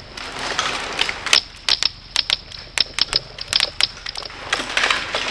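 Airsoft guns firing short bursts and single shots: sharp clicking snaps at an irregular pace, often in quick pairs or runs of two or three, over a faint rustling.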